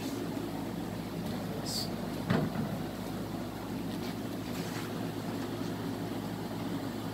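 Honey bees buzzing around an opened hive in a steady drone, with one wooden knock about two seconds in as a hive frame is handled.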